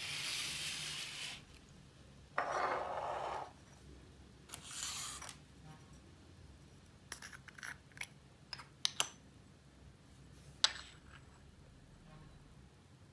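Small clear plastic screw-top jars being handled: three short scraping, rubbing stretches as lids are twisted, then a run of light plastic clicks and taps as jars and lids are set down on a wooden tabletop, the sharpest click near the end.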